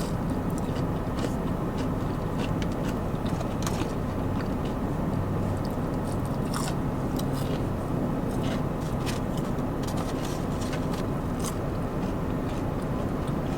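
Close-up mouth sounds of a person biting and chewing fried food, with scattered crisp clicks and crackles, over a steady low hum.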